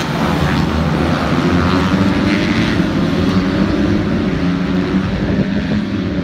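A pack of small racing motorcycles at high revs, pulling away just after a race start, their engine notes overlapping in a loud, steady drone.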